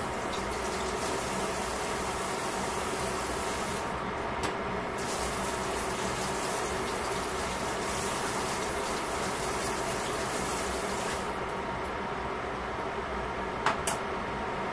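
Pot of vegetables and broth simmering under a glass lid: a steady bubbling hiss. Near the end come two sharp clicks close together.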